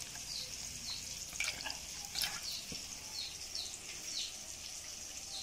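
A hand stirring mustard and poppy seed paste into water in a steel bowl: wet swishing and squelching, with a few sharper splashes about one and a half to two seconds in.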